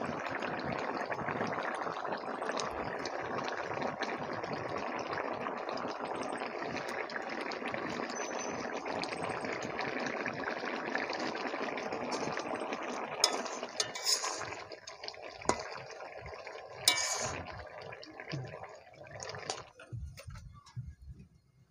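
Pointed-gourd and prawn curry (potol chingri) boiling hard in a metal kadai, a dense steady bubbling. After it, more than halfway through, come a few sharp clinks of steel utensils, and the sound fades near the end.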